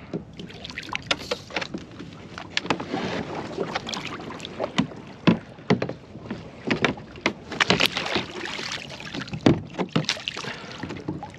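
A kayak being paddled: water splashing with irregular sharp knocks and clicks.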